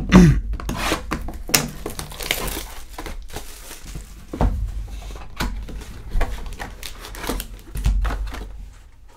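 Cardboard hobby box of Panini Prizm Draft Picks basketball cards being picked up, handled and opened by hand: a steady run of irregular rustles, scrapes and knocks, with the loudest knock right at the start.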